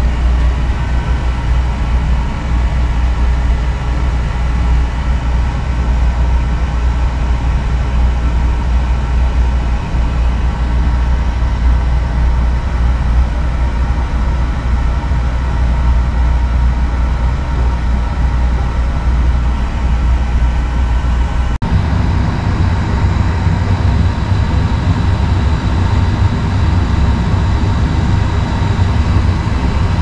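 1991 Slantfin oil boiler with a Beckett oil burner running: a steady low hum with a few faint steady tones above it. About two-thirds of the way through it suddenly becomes louder and brighter, heard from closer up.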